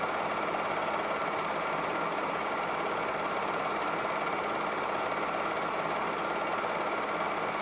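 Super 8 film projector running: a steady, rapid mechanical clatter from the film-advance mechanism with a constant hum underneath.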